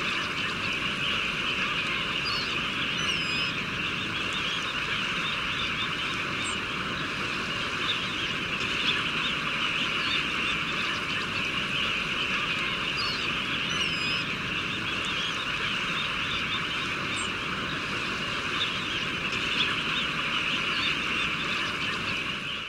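A dense flock of red knots calling together: a continuous, steady chatter of countless overlapping soft calls, with a few thin higher calls standing out now and then.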